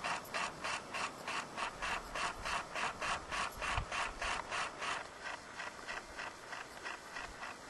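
Rapid, even mechanical clicking like a small ratchet, about four clicks a second, fading out about five seconds in.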